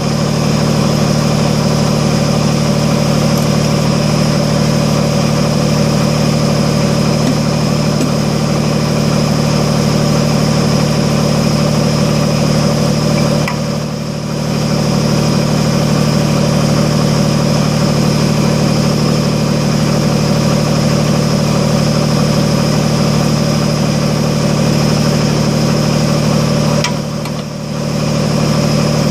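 Kubota BX25D compact tractor's three-cylinder diesel engine running steadily at idle, with two brief dips in level, about halfway through and near the end.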